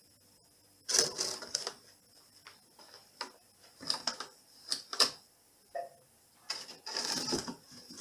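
A cat moving about inside a cardboard box, the cardboard scraping and rustling in irregular short bursts with a few sharp knocks.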